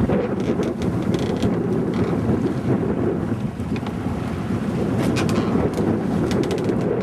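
Wind buffeting the microphone aboard a sailboat under sail: a steady low rumble. A few light clicks come about a second in, and a cluster of them comes near the end.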